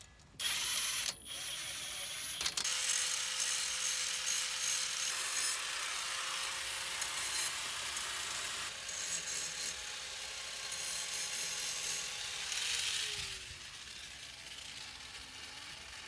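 Cordless power tool at work on a car's brake assembly: a few short bursts and knocks, then the motor running steadily for about ten seconds with a high hiss, winding down in pitch near the end.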